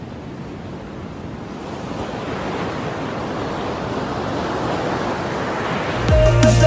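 Ocean surf rushing steadily, slowly growing louder, with no distinct events. About six seconds in, a bass-heavy electronic music track cuts in.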